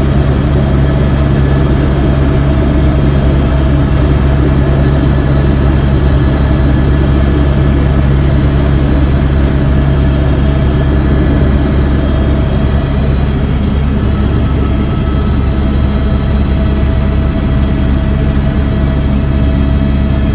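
Helicopter rotor and engine noise heard from inside the cabin: a loud, unchanging drone with several steady humming tones, heaviest in the bass.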